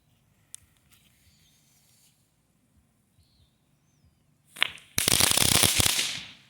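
Crackling ball firework going off: a sharp pop, then about a second of dense, rapid crackling that dies away.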